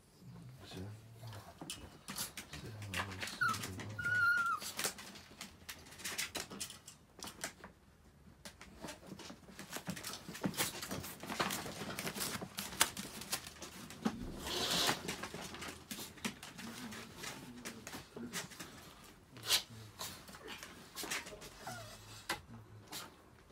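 Chihuahuas moving about in wire crates: scattered clicks, knocks and rattles of claws and crate wire. Two short high whines come a few seconds in.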